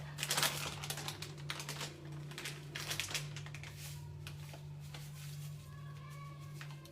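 Rapid light clicks and taps of kitchen utensils against cookware, over a steady low hum.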